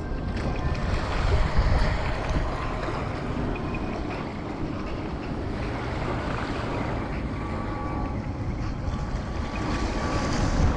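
Wind buffeting the microphone, with small surf washing on the sand.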